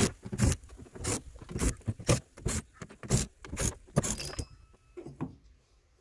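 A run of sharp metallic clicks and clinks as Phillips screws are backed out of a ute tailgate's inner panel with a cordless drill and collected in a metal magnetic tray.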